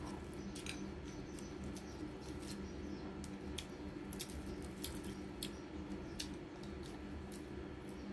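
Crunching of crispy fried dried anchovies being chewed: irregular sharp crackles, with a steady low hum underneath.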